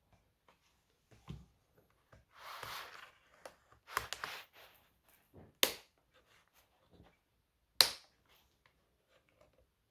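Hands handling a laptop and small tools: a brief scraping rustle, then a few sharp clicks and taps, the loudest about three-quarters of the way through.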